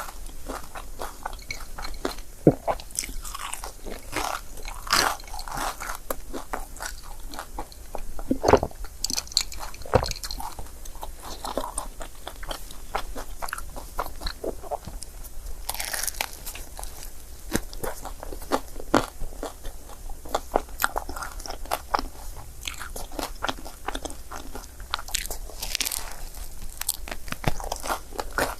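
Crepe being bitten and chewed close to the microphone: irregular crunches and mouth clicks, with a few louder bites.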